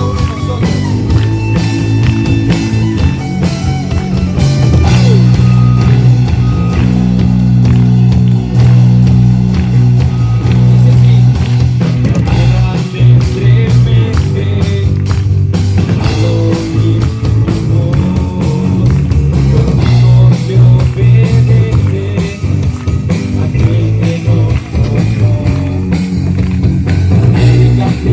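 Loud rock-style band music with guitar and drums, steady low bass notes underneath.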